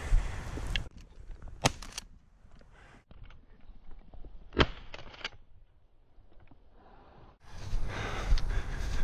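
A hunter's heavy breathing and wind noise on a body-worn action camera, which cut off about a second in. Then comes a quieter stretch with sharp cracks: a smaller one near the second second and the loudest, the shotgun shot, about four and a half seconds in. The breathing and wind come back near the end.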